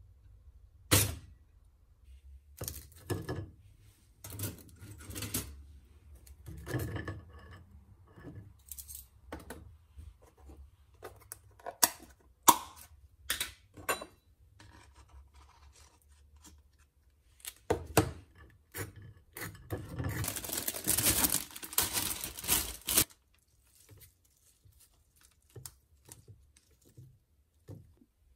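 Kitchen handling sounds of toast being made up: separate clicks, knocks and knife scrapes, with a sharp click about a second in, and a few seconds of dense plastic rustling about two-thirds of the way through as lamb's lettuce is taken from its bag.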